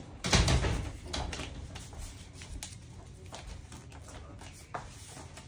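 A sheet of paper being folded and creased by hand on a table, with a louder thump and rustle about half a second in, then soft crinkles and light taps as the fold is pressed flat.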